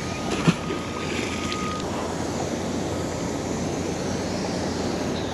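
Steady wind rushing over a body-worn action camera's microphone, with a single sharp knock about half a second in.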